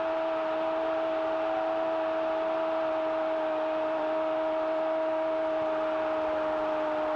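A stadium crowd roaring after a goal, heard as a steady, unbroken wash of noise, with a constant droning tone running through it.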